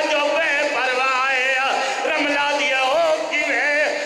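A man's voice in a chanted, sung recitation, the pitch wavering and drawn out on each phrase.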